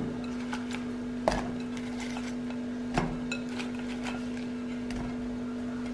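Cucumber slices dropped by hand into a stainless steel mixer-grinder jar, landing with a few scattered knocks and clinks against the metal, the clearest about a second in and again about three seconds in. A steady low hum runs underneath.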